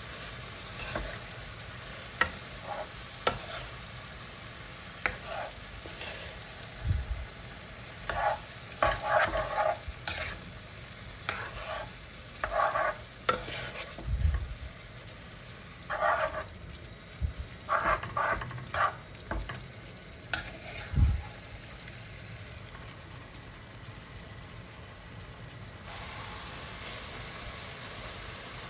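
Kitchen cooking sounds: a steady sizzle-like hiss with scattered sharp clicks and short clatters of utensils, busiest in the middle stretch; the hiss gets louder near the end.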